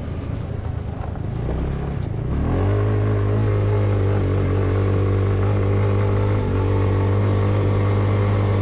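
Hammerhead GTS 150 go-kart's GY6 150cc single-cylinder four-stroke engine, running unevenly at low revs, then revving up about two and a half seconds in and holding a steady higher drone as the kart drives off.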